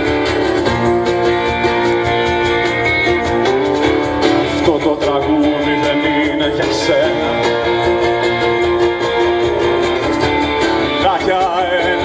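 Live rock band playing an instrumental passage: strummed acoustic guitar over electric guitar, bass and drums. A lead line bends and wavers in pitch about halfway through and again near the end.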